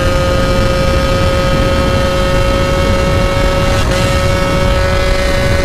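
Moped's small two-stroke engine running at steady high revs under way, holding an even, high-pitched note, over a low rumble of wind on the microphone.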